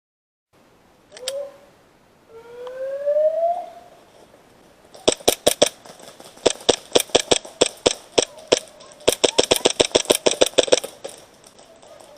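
Airsoft pistols firing a rapid string of sharp pops from several guns for about six seconds, starting about five seconds in. Before the shooting comes a longer rising tone.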